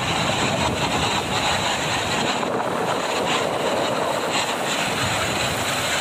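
Rough sea surf: waves breaking on the beach in a steady, even roar.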